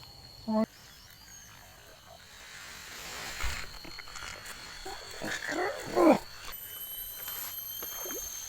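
Steady high-pitched insect buzzing in the background, with a person's short wordless vocal sounds: a brief one about half a second in and louder strained ones around five to six seconds in.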